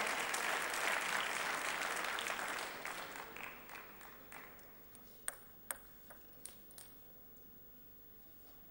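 Spectators applauding after a point, the applause dying away over the first few seconds. Then a few sharp pings of a table tennis ball bouncing, the first two the loudest.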